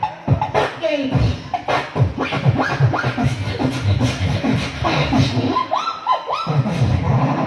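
A boy beatboxing into a corded microphone: a steady beat of low thumps and sharp clicks. About six seconds in come a few quick upward-gliding sounds.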